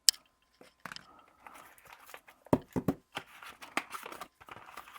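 Unboxing handling noise: a sharp click at the start, then scattered taps, knocks and paper-and-plastic rustling as a pouch and paper pamphlets are lifted out of a small cardboard box.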